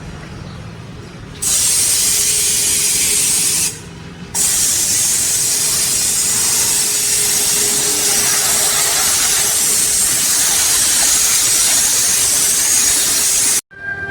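Pressure washer jet spraying onto a car during a wash: a loud, steady hiss that starts about one and a half seconds in, breaks off briefly near four seconds, then runs on until it cuts off suddenly near the end.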